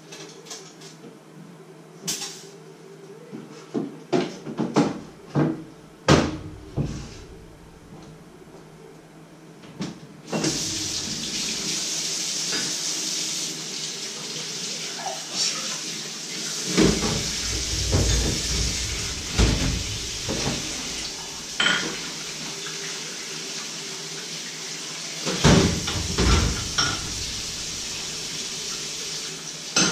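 Dishes and pots knocking and clattering at a kitchen sink; about ten seconds in a tap is turned on and water runs steadily into the sink while the washing-up clatter goes on.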